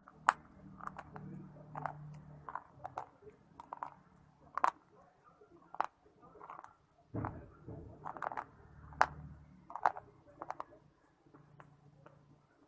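Close biting and chewing of hard, crunchy earth chunks such as baked clay and shale, making a run of irregular sharp crunches with softer grinding between them.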